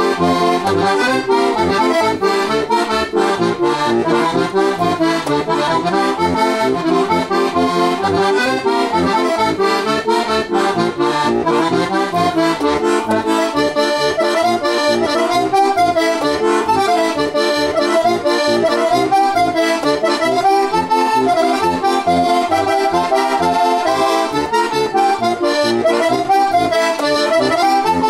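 Heligonka, a Slovak diatonic button accordion in C–F with four sets of brass tipo a mano reeds (one a low octave), playing a folk tune. An ornamented melody runs over sustained chords and an even, pulsing bass accompaniment, with no singing.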